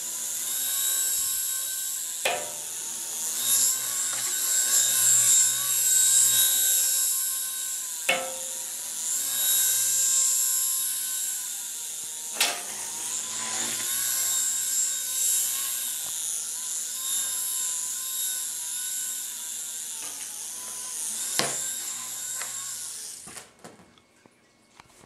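Miniature radio-controlled toy helicopter's small electric motors and rotors whining high, the pitch wavering as it hovers and drifts along the ceiling, with four sharp clicks as it knocks against the ceiling. The whine cuts off near the end as the motors stop.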